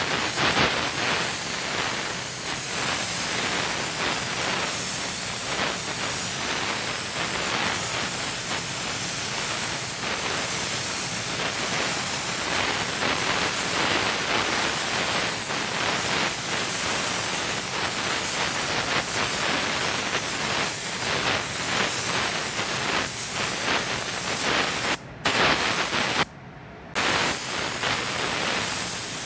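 Compressed-air paint spray gun hissing steadily as it sprays candy yellow paint onto a truck panel, cutting out briefly twice near the end as the trigger is let go.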